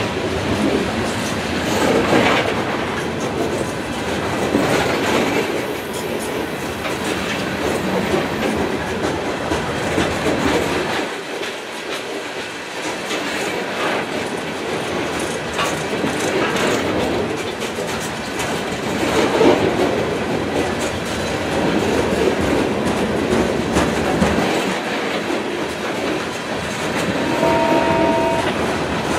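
Loaded coal hopper cars of a freight train rolling past, their steel wheels rumbling and clacking on the rails, with recurring swells.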